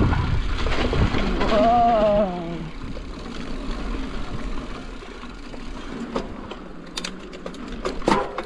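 Cross-country mountain bike rolling along a dirt singletrack: wind rush on the microphone and tyre noise, loud for the first two seconds, then easing. Near the end come a few sharp clicks and knocks.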